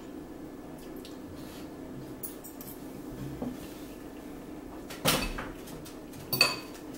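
Cutlery and dishes clattering at a dining table: a few faint clicks, then two sharper knocks near the end, the second a fork clinking on a plate with a brief ring.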